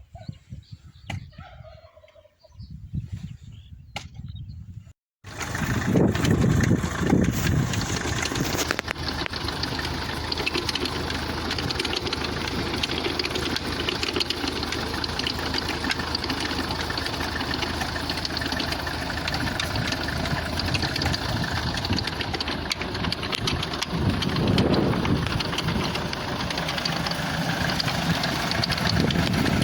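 Engine of a homemade rotary tiller running steadily, starting abruptly after a brief cut about five seconds in; before that, quieter sounds with a few sharp clicks.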